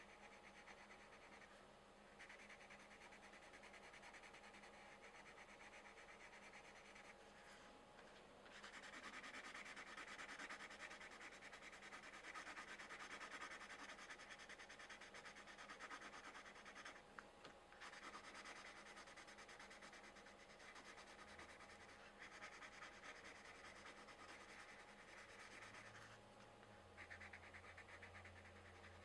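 Quiet scratching of coloured pencils shading on paper in fast back-and-forth strokes, in long stretches with a few short pauses.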